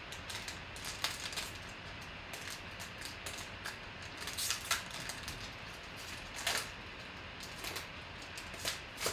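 Foil trading-card pack wrapper crinkling and tearing as gloved hands peel it open: an irregular crackle with scattered sharper crinkles, the loudest about four and a half seconds in and again near the end.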